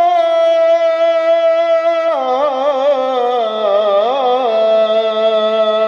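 A male Quran reciter chanting in the Iraqi maqam style, holding the long drawn-out vowel of 'falammā'. The note dips lower about two seconds in with quavering melodic ornaments, then settles into a steady, lower held tone.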